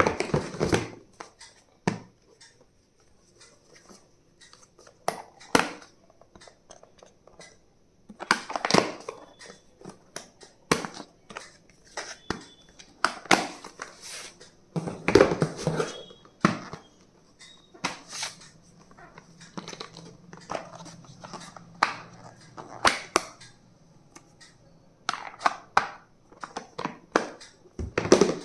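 Packaging crinkling and tearing, with irregular clicks and knocks from small stationery items being handled.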